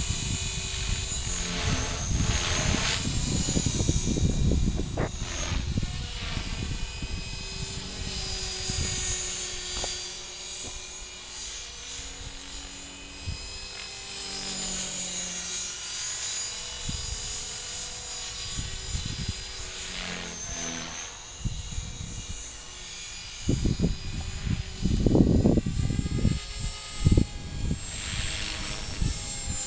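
Align T-Rex 450 Pro electric RC helicopter flying, its motor and rotors giving a steady whine that shifts slightly in pitch as it manoeuvres. Wind buffets the microphone in gusts, loudest in the first few seconds and again near the end.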